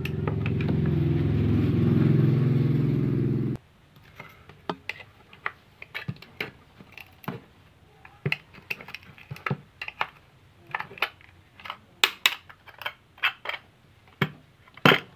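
Metal parts of a dismantled car horn clicking and tapping as they are handled and pried apart, in irregular sharp ticks. Before that, a loud low steady hum cuts off suddenly about three and a half seconds in.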